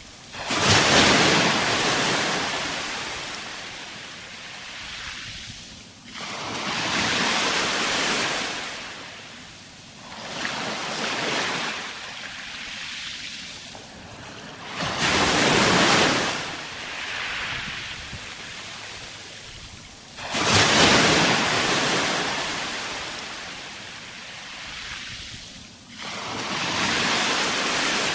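Sea waves breaking on the shore and washing back, one surge every four to five seconds, each building sharply and then fading.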